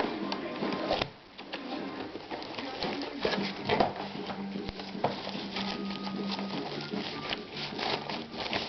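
Irregular clicks, taps and rustles of hands handling things during an unboxing, with a steady low hum for a couple of seconds in the middle.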